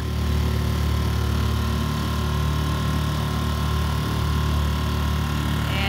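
A small dinghy's outboard motor running steadily under way, with hiss from water and wind.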